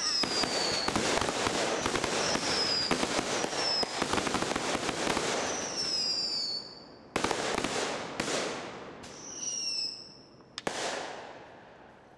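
Consumer fireworks going off in a dense barrage of bangs and crackling, with several whistles falling in pitch. After about six seconds it thins to a few separate loud bangs and one more whistle, then dies away.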